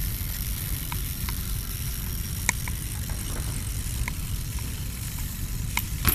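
BMX bike tyres rolling on concrete pavement: a steady low rumble, with a few scattered light clicks and taps from the bike, the sharpest about two and a half seconds in.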